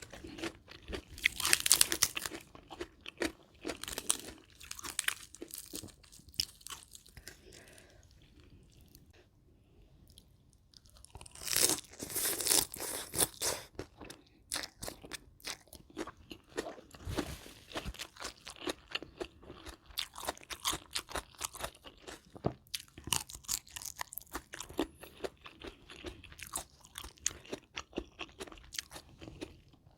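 A person biting and chewing mouthfuls of spicy rice-noodle salad with shrimp and raw vegetables, close to the microphone. There are loud crunches about a second in and again around twelve seconds in, with steady chewing between and a quieter pause in the middle.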